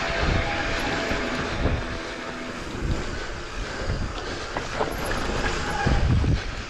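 Wind buffeting the camera microphone during a mountain-bike descent, over the rumble and knocks of the tyres and bike on the rough trail.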